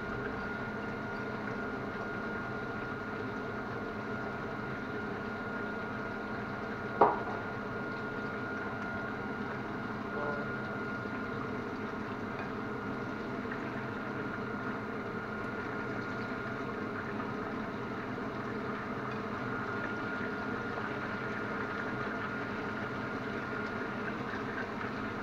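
Chicken breast sizzling steadily in a pan on a gas hob, with a faint steady high tone over it. One sharp click about seven seconds in.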